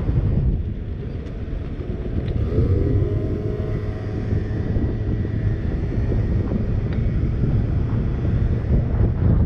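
50cc scooter engine running while riding, over a steady low rumble, its pitch rising about two and a half seconds in as it speeds up.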